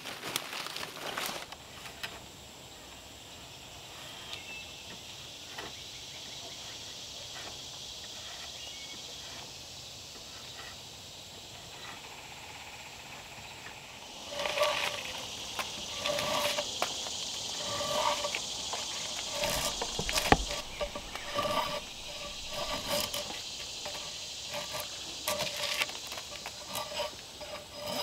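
Steady insect buzz. About halfway through, a drawknife starts being pulled again and again along a log, shaving off bark in short, squeaky scraping strokes.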